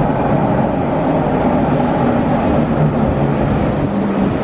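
Toei Oedo Line subway train running along the platform at speed behind the platform screen doors: a steady, loud rumble with a low motor hum.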